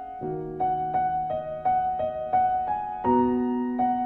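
Background piano music: a gentle melody of single notes struck about three times a second over held lower chords, the chord changing twice.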